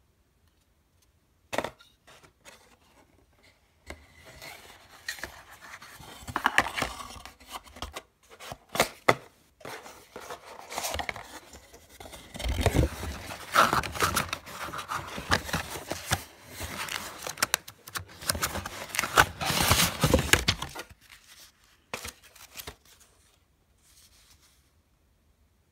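Cardboard tablet box and its paper inserts being handled: cardboard scraping and sliding and paper rustling in irregular rubs and knocks. The handling is busiest through the middle and thins out near the end.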